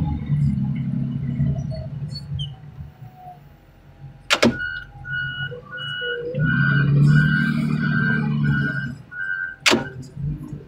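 Engine running, with a reverse warning beeper sounding about twice a second for several seconds from about the middle on. Two sharp clicks, one just before the beeping starts and one as it stops.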